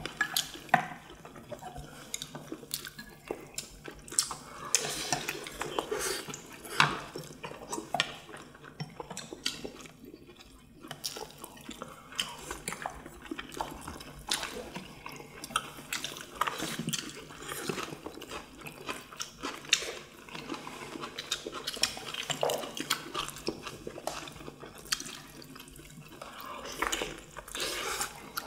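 Several people eating at a table: wet chewing and mouth sounds, with chopsticks and spoons clicking irregularly against ceramic bowls and plates.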